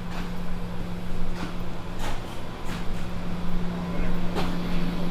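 Footsteps walking along a jet bridge, about one and a half steps a second, over a steady low hum.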